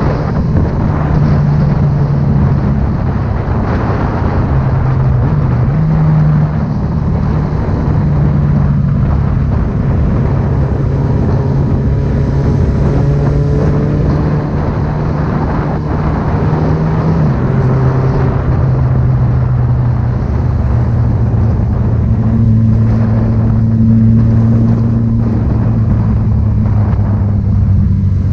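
A motor vehicle's engine and exhaust running steadily and loud, the engine note holding at a constant pitch, then dropping to a lower one about two-thirds of the way through.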